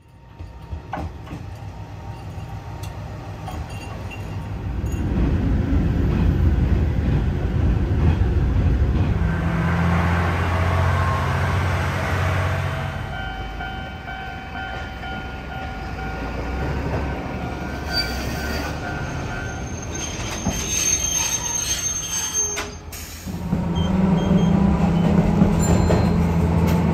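A train approaching, its low rumble swelling about five seconds in and fading again; a few steady tones sound in the quieter stretch that follows. From about 23 seconds in, a Tosaden tram running along its track gives a steady low hum.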